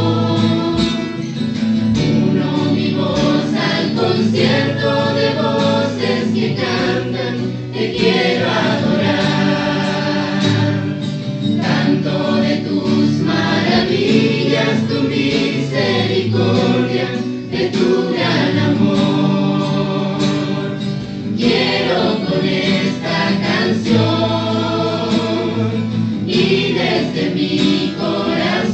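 Spanish-language Christian worship song: voices singing together as a choir over band accompaniment with guitar, continuing without a break.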